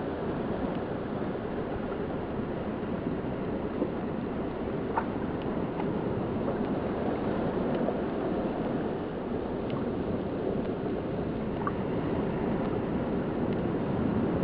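Steady rushing of sea surf along a rocky shore, with a few faint ticks.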